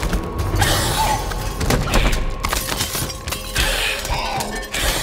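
Glass shattering and breaking, with shards scattering across the floor and several heavy thuds as creatures land.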